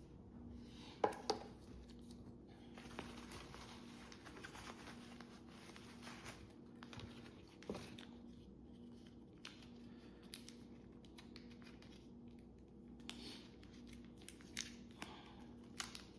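Faint rustling and crinkling of packaging being handled and opened, with a few light clicks and knocks, the sharpest about a second in. A faint steady low hum runs underneath.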